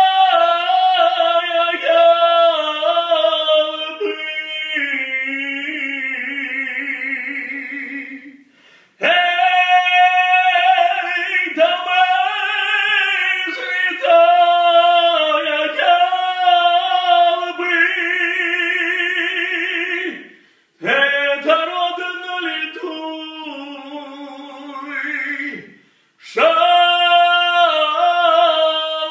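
A man singing solo and unaccompanied in a high, full voice. He holds long notes with wide vibrato, and brief pauses fall between the phrases.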